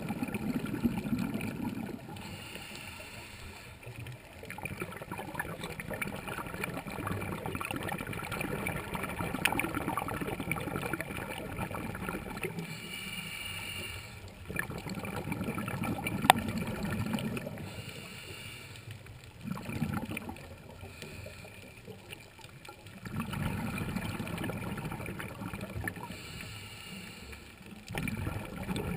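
Scuba diver breathing through a regulator, heard underwater: a short hiss on each inhale, then a longer burble of exhaled bubbles, repeating every four to six seconds. A single sharp click about halfway through.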